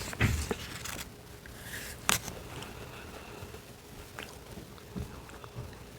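Close-miked eating of ice cream: soft mouth and chewing sounds with a few short clicks or taps, the sharpest about two seconds in.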